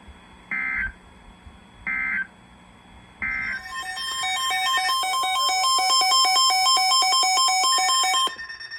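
EAS end-of-message data tones: three short buzzing data bursts about a second apart. These are followed by a louder electronic alert sound of rapid beeps on several pitches, which builds up, runs for about five seconds and cuts off suddenly.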